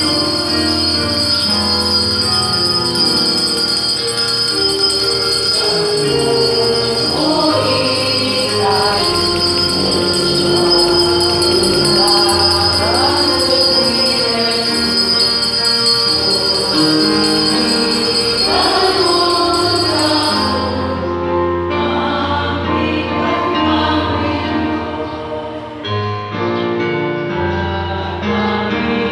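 A Christian hymn sung by a choir with instrumental accompaniment and light jingling percussion.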